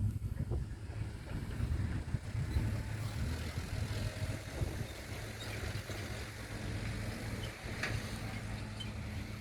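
Engine running steadily at low speed, a constant low hum with a few faint clicks and knocks over it.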